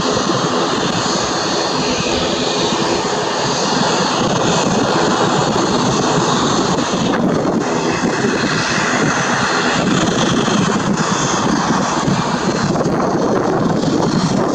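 Boeing 737-800's CFM56 jet engines running at low thrust as the airliner turns and taxis on the runway after landing: a steady jet noise with a faint high fan whine, a little louder about four seconds in.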